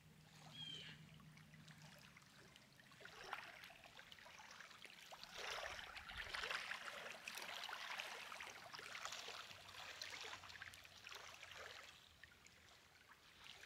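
Faint lake water lapping and splashing, swelling in the middle and dying down near the end.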